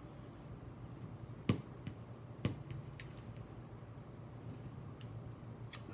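Hands handling a quadcopter frame and its parts on a workbench: a few scattered clicks and taps, the two sharpest about one and a half and two and a half seconds in, over a low steady hum.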